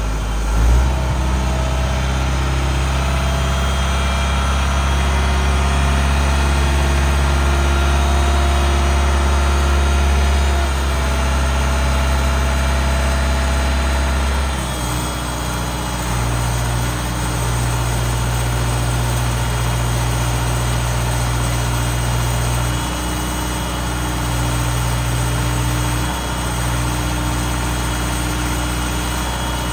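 Diesel engine running steadily to drive a truck-mounted pressure digger's hydraulics while the boom is raised. The engine's note changes about halfway through.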